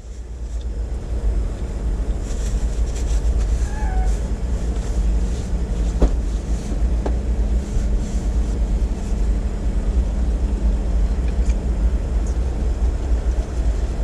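Steady low rumble of an idling car engine with a faint steady hum, and a few small clicks, the clearest about six and seven seconds in.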